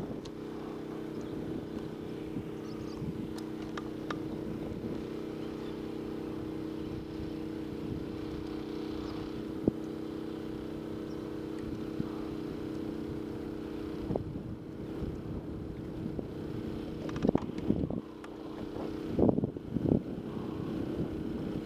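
Bow-mounted electric trolling motor running with a steady hum. In the last several seconds there are irregular knocks and thumps on the boat.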